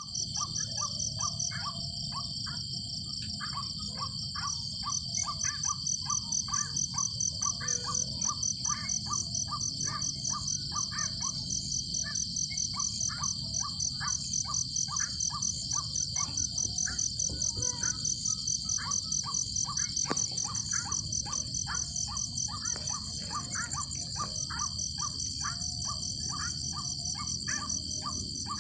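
Distant white-breasted waterhen calls repeated over and over, about three a second: the luring call that bird trappers sound to draw waterhens in. A steady high buzz of night insects runs underneath.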